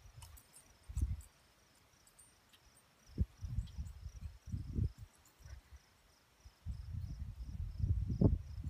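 Crickets chirping faintly and steadily, broken by irregular bursts of low rumbling, loudest about a second in, in the middle, and near the end.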